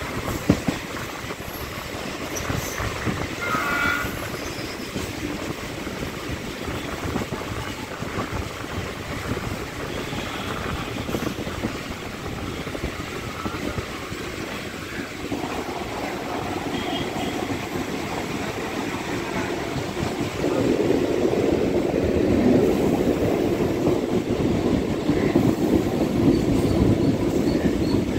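Suburban electric multiple-unit train running, heard from inside a moving coach at an open window or door: a steady rush of wheels on rail and passing air, with a sharp knock just after the start. The noise grows louder about two-thirds of the way through.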